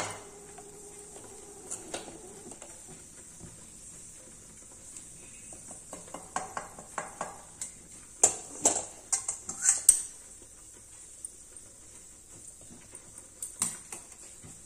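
Metal spatula scraping and knocking against a metal pan as dry-roasted rice flour is scraped out of it, with a cluster of sharp clinks and scrapes about six to ten seconds in and a single knock near the end.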